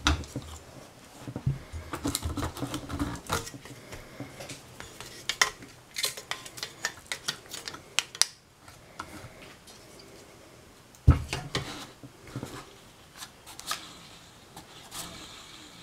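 Metal clicking and clinking of hand work on a car's AC condenser fan: the electric motor and its plastic fan being freed from the rusty steel mounting bracket by its bent-over locking tabs. Many short irregular clicks, with one sharp knock about two-thirds of the way through.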